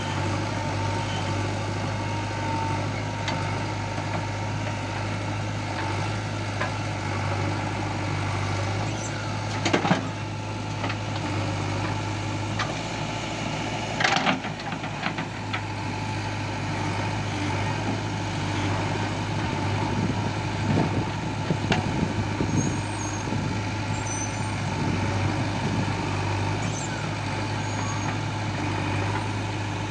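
Diesel engine of a JCB 3DX backhoe loader running steadily under work, with a couple of sharp knocks about ten and fourteen seconds in and a run of smaller knocks a little past the middle.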